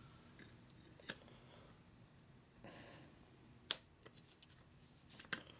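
Three faint metallic clicks of needle-nose pliers working a stiff stainless cotter pin on a motorcycle brake caliper, the sharpest one a little past the middle.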